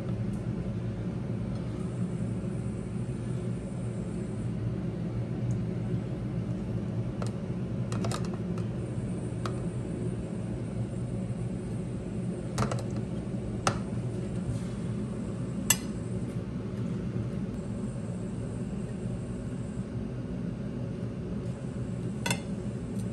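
A table knife spreading ketchup on toast, with a handful of sharp clinks as the blade knocks against the ceramic plate and pot, over a steady low hum.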